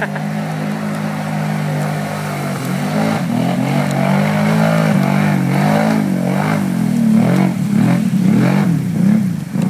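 Kawasaki Brute Force 750 ATV's V-twin engine, fitted with an aftermarket exhaust pipe and cam, revving up and down as the quad ploughs through a deep mudhole. It gets louder as it comes closer.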